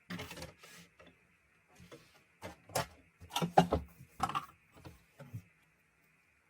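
Clicks, taps and light rustles of photocards and plastic sleeves being handled and put into a photocard binder, with a few sharper clacks in the middle.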